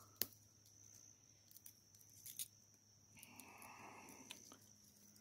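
Near silence, with a few faint clicks and light rustles from a broken crossbow bolt being handled.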